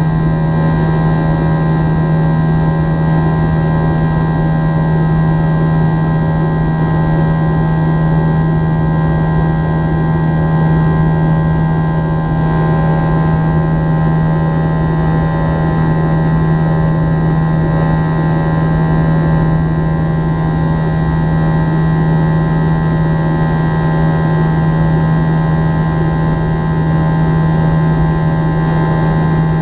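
Steady cabin drone of an Airbus A321's IAE V2500 turbofan engines: a strong low hum with a set of steady higher whines over a rushing airflow noise, unchanging throughout.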